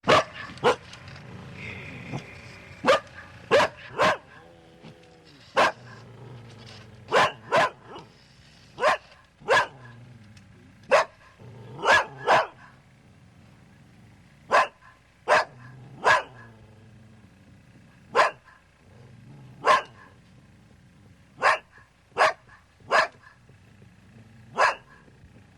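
Large dog barking repeatedly: sharp single barks and quick pairs, one every second or two, with short gaps between.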